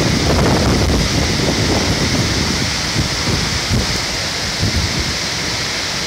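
Large waterfall (Wachirathan Waterfall) heard from close below as a loud, steady rush of falling water. Uneven low buffeting of wind on the microphone runs underneath.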